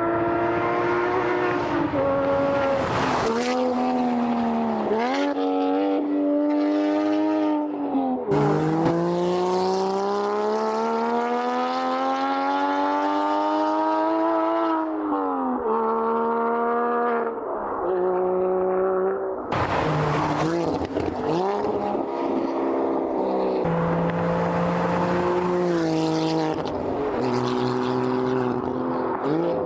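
Porsche 987 Boxster's naturally aspirated flat-six through an aftermarket Valvetronic Designs exhaust, accelerating hard. The pitch climbs and then drops at each gear change, with one long climb in the middle, and settles to a lower, steadier run in the latter part.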